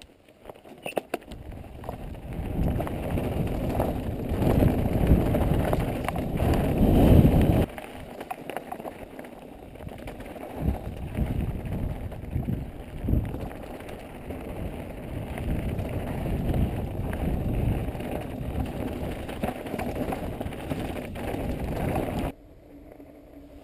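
Mountain bike descending a rocky gravel trail, heard through an action camera's microphone: wind rumbling on the mic with tyres crunching over loose stones and the bike rattling over bumps. It is loudest for the first several seconds, drops abruptly about eight seconds in, and falls away suddenly near the end.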